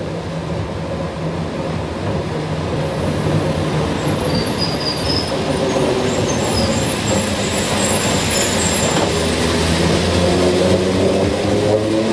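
Electric street tram running on its rails as it approaches and passes close by, a steady rumble of wheels on track with brief high-pitched wheel squeal about four to seven seconds in and a whine rising in pitch near the end.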